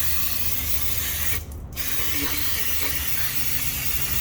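Cleaner sprayed in a steady hiss onto the oil-soaked front main seal area of an engine to wash off leaked oil, stopping briefly about one and a half seconds in and then resuming.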